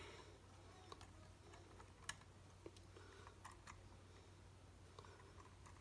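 Faint scattered small clicks and taps of lens parts and a small tool being handled, with one sharper click about two seconds in, over a faint low hum.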